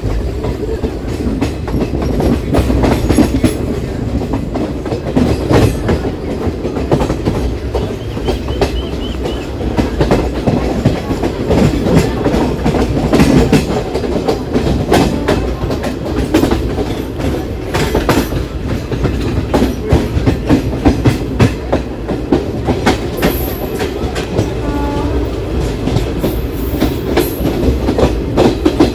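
ICF passenger coach running on the line, heard from on board: a steady rumble with the wheels clicking and clattering over rail joints.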